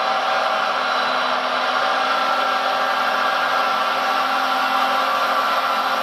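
Electric-driven hydraulic pump of a Liebherr 956 RC model excavator running with a steady whine while its arm moves slowly.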